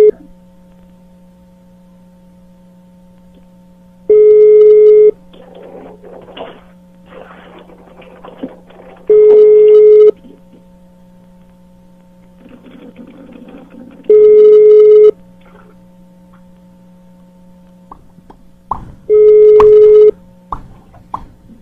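Telephone ringback tone heard over the line: a one-second beep at one steady pitch, repeating every five seconds, four times. This is the Brazilian ring cadence of a call ringing out that nobody picks up. A low steady hum runs beneath.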